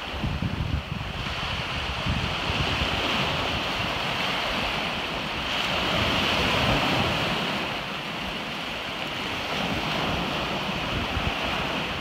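Small surf waves breaking and washing up the shore, with wind buffeting the microphone. The surf swells louder about halfway through as a wave breaks.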